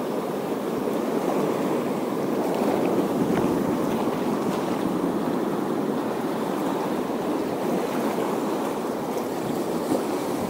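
Sea surf washing against a rocky shore, a steady rushing noise.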